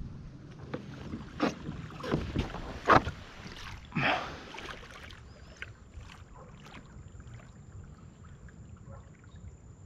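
Sounds of a fishing kayak moving through calm water: water splashing and gear knocking against the hull, several sharp knocks or splashes in the first half, then quieter small ticks and lapping.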